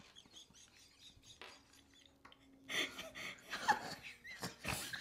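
Faint clicks of a knife working slowly through a whole pickle on a cutting board, then laughter in short breathy bursts from about halfway through.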